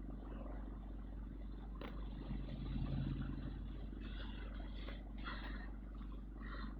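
Motor vehicle running with a steady low hum, swelling briefly about three seconds in, with a sharp click a little before two seconds and a few short brighter noises near the end.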